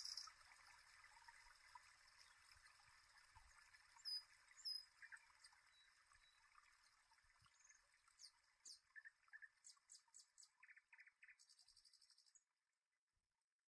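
Faint outdoor ambience of birds and insects. A loud insect buzz stops just at the start, followed by scattered short bird chirps and a quick run of chirps later on. The sound cuts to silence about twelve seconds in.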